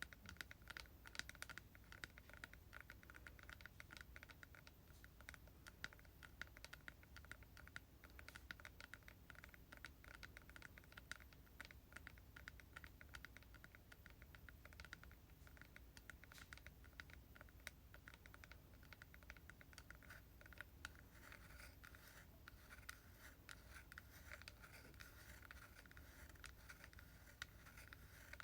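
ASMR tapping on hair product containers: quick, quiet taps in a dense run, turning into a scratchier rubbing in the last several seconds.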